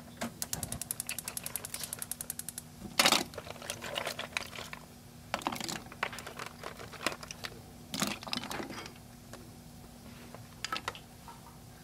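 Rapid, evenly spaced ticking for about two and a half seconds, then a loud clatter as shelled sea snails are tipped into a metal frying pan. Smaller bursts of shells clinking against the pan follow, over a steady low hum.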